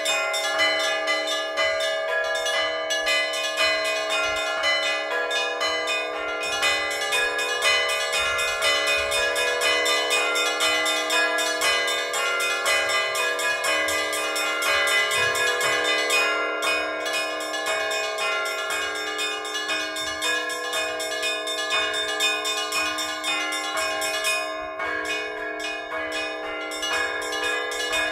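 Orthodox church bells rung by hand by a bell-ringer: quick, continuous strikes on the smaller bells ring over the lasting tones of the larger bells, with no pause.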